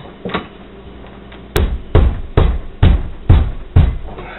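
Two light clicks, then six heavy knocks about two a second, as the table clamp of a hand-cranked seed grinder is tightened against a countertop edge.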